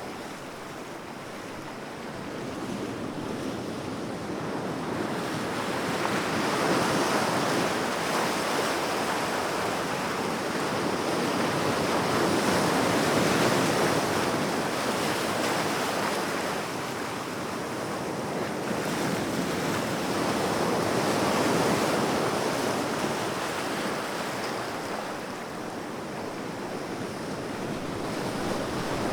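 Calm sea washing onto a beach: small waves breaking and running up the shore in a continuous hiss that swells and ebbs slowly, every several seconds.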